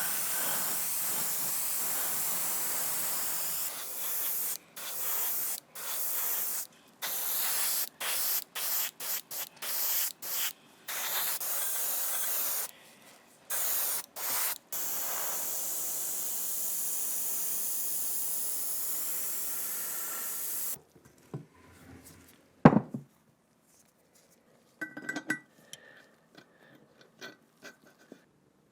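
Spray paint hissing, in a long spray, then many short bursts of about a second each, then a steady spray of about six seconds that stops suddenly. After it come one sharp knock and a few light metallic clinks.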